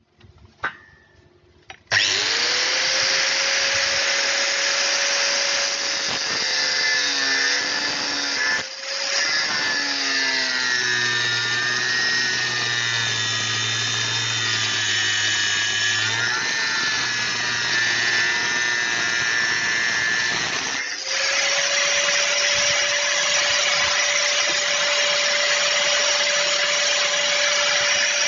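Angle grinder switched on about two seconds in, its whine rising to a steady pitch as the motor comes up to speed. The pitch sags and wavers under load while it cuts. It drops out briefly about two thirds of the way through and spins back up to a steady whine.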